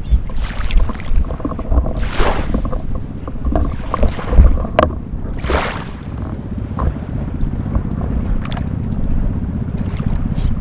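Water lapping and splashing in short swishes every second or few, over a steady low rumble.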